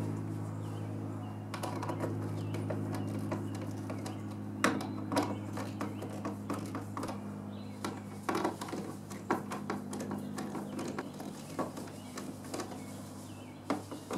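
Irregular clicks and taps of metal mounting straps and screws as two wall switches and a receptacle are worked into a plastic three-gang electrical box, over a steady low hum.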